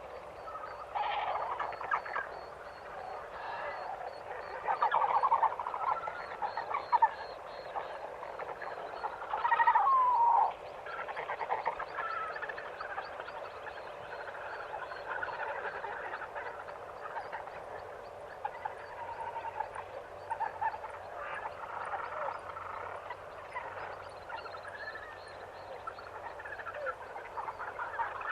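A dense chorus of many animal calls overlapping without pause, with a thin pulsing trill high above. Louder calls stand out about five seconds in and again around ten seconds in.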